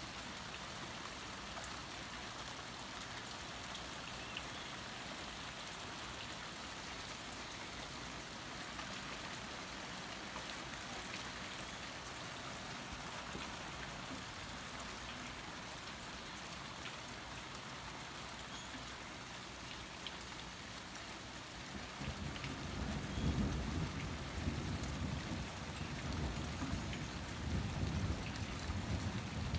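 Steady rain falling. About three-quarters of the way through, a low rumble of thunder builds and rolls on, louder than the rain, to the end.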